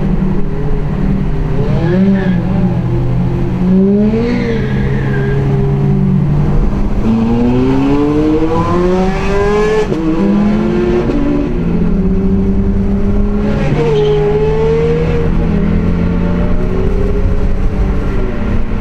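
Two Ferrari V8 engines, a Scuderia Spider 16M and an F430 Spider, revving as they drive. The engine pitch rises and falls repeatedly, with a long climbing pull about a third of the way in.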